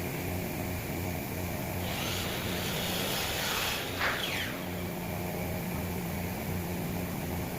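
A steady low machine hum, with a hissing rasp that swells about two seconds in and ends with a sharp peak around four seconds.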